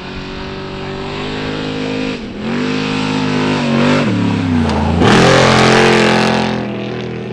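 Off-road trophy truck race engine revving hard as the truck passes. The pitch dips sharply about two seconds in, sinks over the following seconds, then jumps back up about five seconds in with a loud rushing noise, the loudest moment, before fading.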